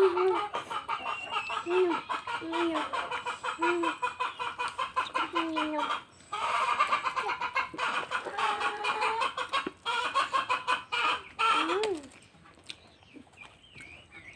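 Chickens clucking: short hen clucks repeat about once a second over a busy background of more clucking. The sound stops abruptly about twelve seconds in, and only a few faint higher calls follow.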